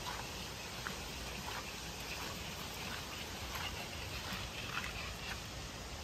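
Outdoor background ambience: a steady soft hiss with a few faint, short chirps scattered through it.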